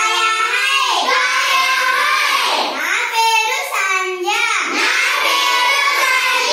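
Children's voices reciting Marathi phrases aloud in a continuous sing-song chant.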